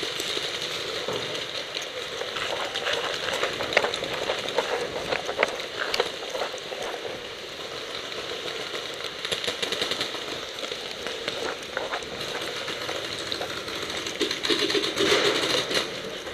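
Paintball markers firing, with sharp pops in irregular rapid strings over a steady hiss of movement noise on the camera microphone.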